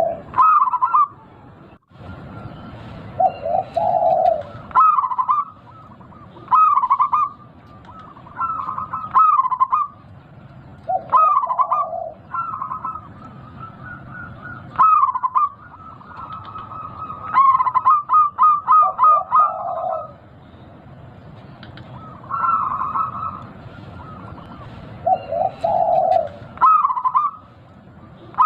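Zebra dove (perkutut) cooing: repeated short, rhythmic coo phrases every second or two, with a quick run of clipped notes about two-thirds of the way through, over a steady background hiss.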